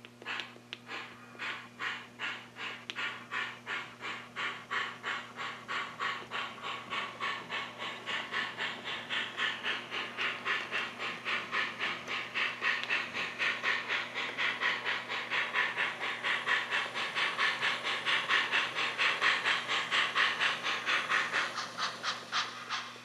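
HO-scale model steam locomotive's sound decoder chuffing through its small speaker. The exhaust beats quicken from about two to three or four a second as the engine gathers speed, then cut off abruptly near the end.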